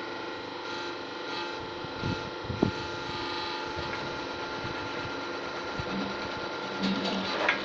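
Electric welding machine humming steadily with several fixed tones. A couple of short knocks come about two seconds in, and a buzzing crackle comes near the end.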